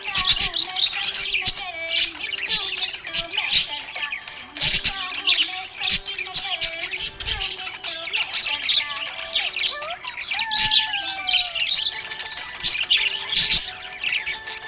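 Small pet parrots chattering: rapid, overlapping chirps and squawks with a few lower wavering warbles, one sliding down in pitch about ten seconds in.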